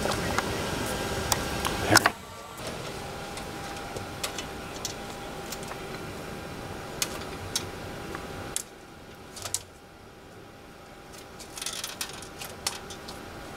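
Footsteps and scattered light clicks and jingling of flight gear, with shoes clicking on the metal rungs of the jet's boarding ladder as it is climbed. A faint steady tone sits underneath for a few seconds in the middle.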